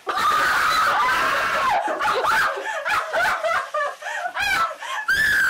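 Loud, high-pitched shrieking laughter from young women, coming in broken bursts that start abruptly and keep breaking off and restarting.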